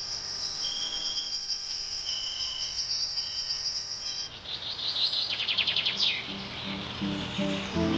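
Tropical rainforest insects trilling in a steady high-pitched chorus, with shorter repeated notes over it. Around the middle a rapid pulsed chirping call and a quick falling call break in.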